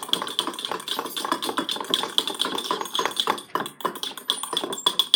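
Metal forks rapidly stirring thick clear soap in small glass mason jars, clinking fast and steadily against the glass as the soap is whipped until it bubbles.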